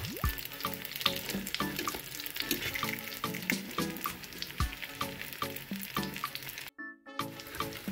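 Breaded cutlets sizzling and crackling in hot fat in a stainless steel frying pan, under background music with a steady beat. Both cut out for a moment near the end.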